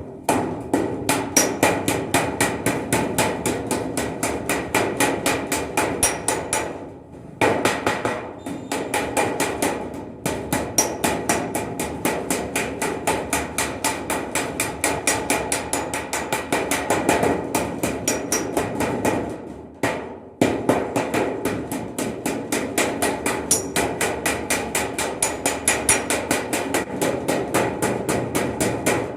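Hammer beating a metal kandal water vessel during repair, fast steady blows at about three a second, each with a short metallic ring. The hammering stops briefly twice, about seven and twenty seconds in.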